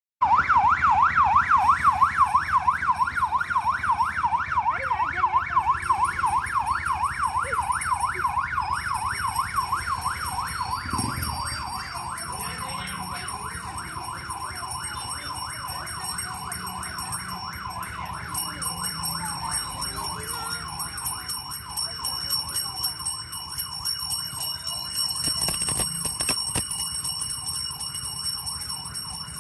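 Electronic yelp siren, its pitch sweeping rapidly up and down several times a second, loudest at first and fading steadily as it moves away.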